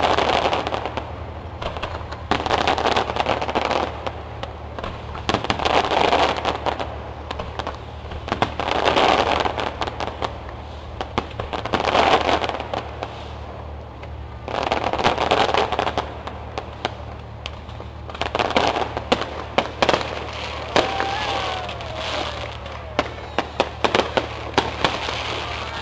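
Aerial fireworks shells bursting in a series, a broad booming burst about every three seconds. Sharp crackling pops come thick in the second half.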